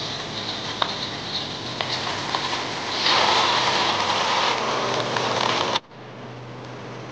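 Scallion and ginger sizzling in hot oil in a wok, with a few light clicks of the metal spatula. About three seconds in, cooking wine and boiling water are poured onto the fried hairtail fish, a louder rush of pouring and hissing. Near the end it cuts suddenly to a quieter, steady bubbling of the lidded wok stewing, with a low hum.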